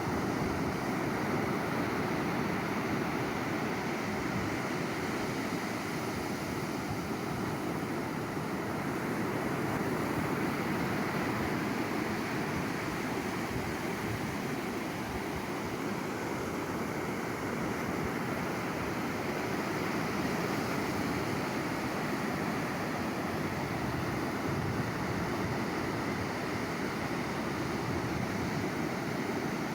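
Sea waves washing onto a shore in a continuous surf roar that swells and eases gently.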